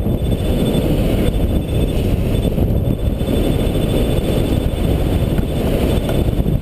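Wind rushing over the microphone of a camera mounted on a hang glider in flight: a loud, steady, rumbling buffeting with no other clear sound.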